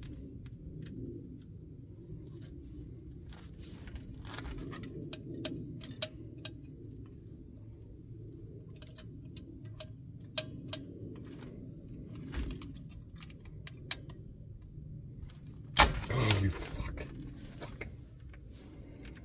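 Scattered light metallic clicks and clinks of parking brake cable hardware being handled and fitted, with a louder clatter about sixteen seconds in, over a low steady hum.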